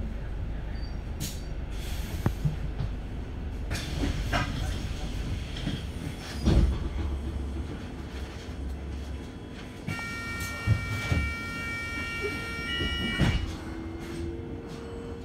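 Inside a double-decker bus at a standstill: a low engine rumble with knocks and rattles from the body. The rumble eases about nine seconds in. About ten seconds in, a steady high squeal made of several tones together lasts about three seconds.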